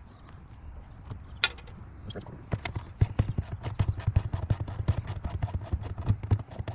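Hand ratchet clicking in quick runs as bolts are worked loose, several sharp clicks a second, starting about two and a half seconds in after a single earlier click.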